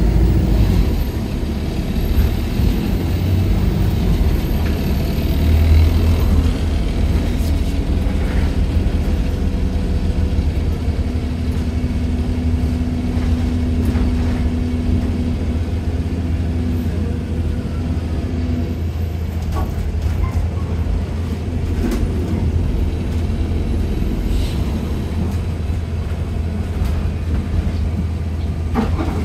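Stagecoach London bus running, heard on board: a steady low drone from the engine and air compressor, with a steady hum that comes in about a third of the way through and stops about two-thirds through.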